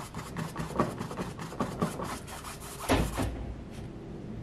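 Paintbrush swishing acrylic paint side to side on a stretched canvas, a quick, irregular run of short scratchy strokes several times a second, with one louder knock about three seconds in.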